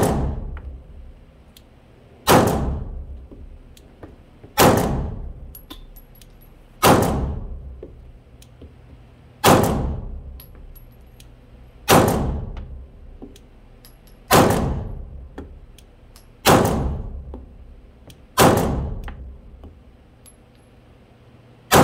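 Glock G19 9mm pistol fired slowly, ten single shots about two seconds apart, each shot ringing out in a long echo in an indoor range.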